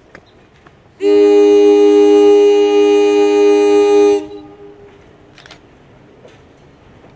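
Locomotive Leslie RS3L three-chime air horn sounding one long, steady blast of about three seconds, then cutting off.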